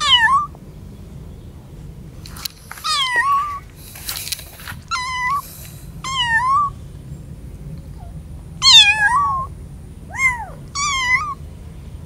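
Several young kittens meowing, about seven short, high, thin calls that rise and fall in pitch, separated by short pauses. These are calls of kittens away from their mother cat in a strange place. A short rustling noise comes about four seconds in.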